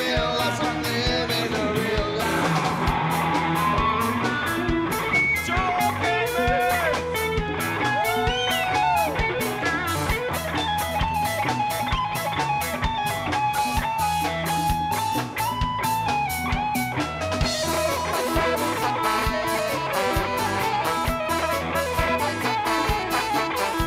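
Live rock band playing an instrumental passage: an electric guitar lead with bent, gliding notes and a long held note, over a steady drum beat and bass.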